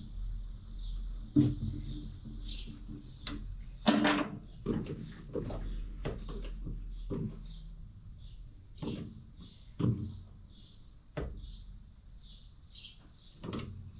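Steady high-pitched trill of insects, with short repeated chirps, under a scattered series of sudden knocks and clunks from hand work on the mower's gearbox. The loudest knocks come about four seconds in and again around nine to eleven seconds in.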